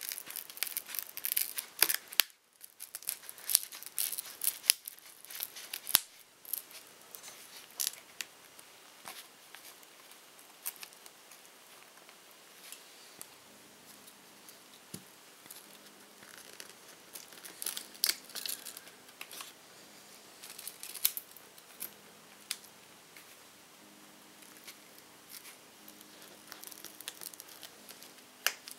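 A plastic pry tool scraping and levering at a Nexus 7's cracked, glued-down front glass, with many small sharp clicks and crackles of the broken glass and adhesive giving way. They come thickest in the first couple of seconds and again a little past halfway.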